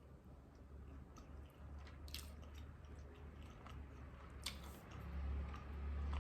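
Close-up chewing of a chicken McNugget dipped in sweet chili sauce, with small wet mouth clicks. A low rumble swells near the end.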